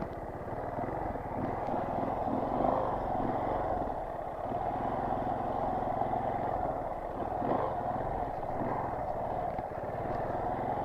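Motorcycle engine running at low speed, held steady with small throttle swells, as the bike is ridden slowly over a rough trail.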